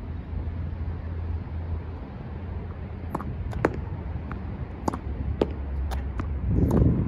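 Tennis ball being hit with a racket against a brick wall and bouncing on asphalt: a run of sharp pops about every half second, starting about three seconds in. Under them is a low rumble of wind on the microphone, which swells near the end.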